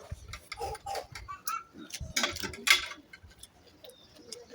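A person eating close to the microphone: chewing with a run of small wet mouth clicks and smacks, and a louder noisy burst of chewing about two and a half seconds in.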